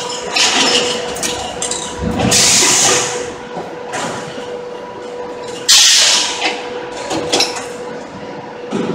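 Concrete block line's stacker gripper working: two loud bursts of hiss, about two seconds in and just under six seconds in, with clicks and clatter of machinery over a steady machine hum.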